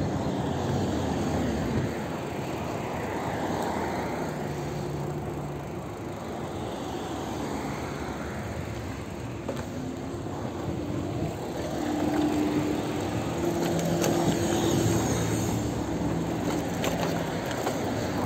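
Wind rushing over the microphone of a camera on a moving bicycle, mixed with road noise and motor traffic passing, whose engine hum comes and goes twice.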